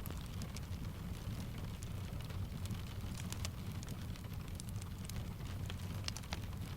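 Fireplace crackling with scattered sharp pops over a steady low rumble, layered with rain falling on a window.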